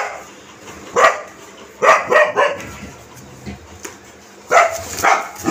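Pet dog barking in short sharp barks, about seven in bunches, at a red LPG gas cylinder it is afraid of.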